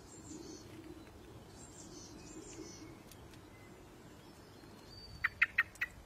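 Small birds chirping faintly with high, rising-and-falling calls over a low background hum, then four sharp, loud clicks in quick succession near the end.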